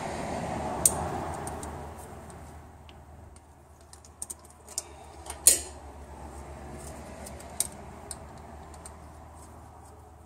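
Irregular metallic clicks and taps of a ratchet and hands working the 10 mm bolt and wiring-harness plug on the valve body of a VW T4's 01P automatic transmission, with one sharper click about five and a half seconds in. A steady rushing noise fades out over the first two seconds.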